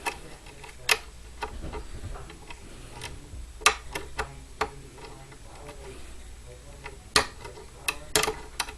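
Metal pick raking and lifting pins inside a five-pin mortise lock cylinder loaded with spool and serrated security pins, under tension. The result is irregular sharp clicks and ticks, some clustered close together, as the pins are worked against the shear line.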